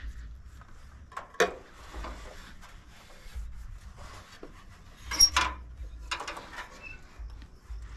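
Scattered knocks and rubbing from gear being handled on a small plastic boat, with a sharp knock about a second and a half in and a cluster of clattering about five seconds in, over a low rumble.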